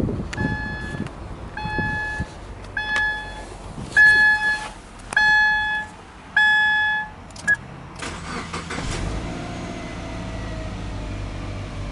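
The car's in-cabin warning chime beeps six times, about once a second, with a short seventh beep. Then the starter cranks briefly and the Subaru Legacy 2.5GT's turbocharged EJ25 flat-four catches and settles into a steady idle.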